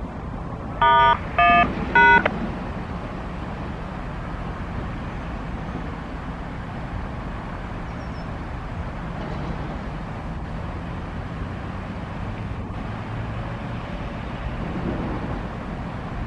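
A horn sounds three short, loud blasts about a second in, over a steady rumble of highway traffic and wind.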